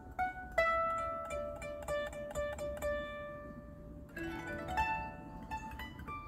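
Homemade ten-string koto built on a longboard skateboard deck, with bone bridges, being plucked: a melody of single ringing notes that thins to a brief lull about three and a half seconds in, then picks up again.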